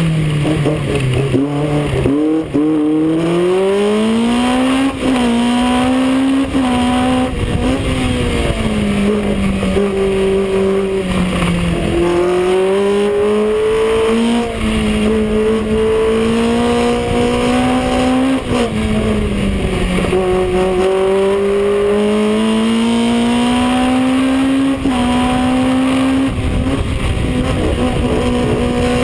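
The Ford four-cylinder engine of a 1963 Lotus 23B sports racer, driven hard up a hill climb, heard from the open cockpit. Its pitch climbs under acceleration and drops back again and again at gear changes and when it slows for bends.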